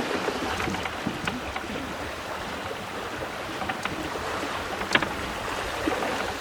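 Steady rush of water along the hull of a small sailing boat under way, with a few light clicks.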